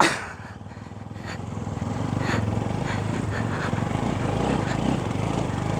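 Bajaj Pulsar NS200's single-cylinder engine labouring up a steep dirt climb, its sound building about a second and a half in and then holding steady under load. The rider finds the NS short of low-end power once the engine is hot.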